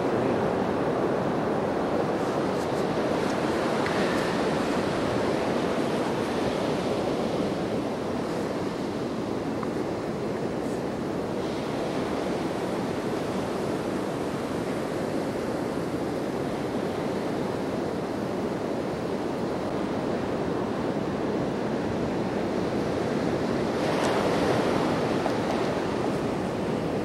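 Steady rushing of water at the shoreline, swelling louder briefly about four seconds in and again near the end.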